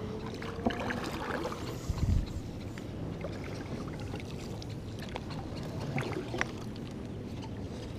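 Kayak paddle dipping and stroking through the water, with a short low thump about two seconds in and a few light clicks.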